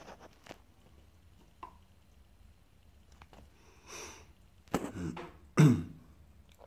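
A person clearing their throat, two short rough bursts near the end, the second louder, after a few faint clicks.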